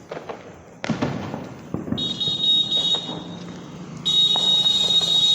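Diwali firecrackers: a sharp crack about a second in, then a shrill, steady whistle that breaks off briefly and returns louder near the end.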